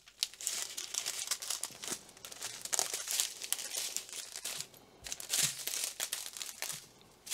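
Clear plastic packets of diamond-painting drills crinkling as they are handled and squeezed between fingers, in irregular crackles with a short lull just past halfway.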